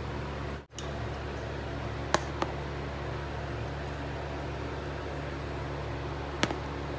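Steady fan-like room hum, cutting out for an instant near the start, with three light clicks of a serving spoon against a plate, two close together about two seconds in and one near the end.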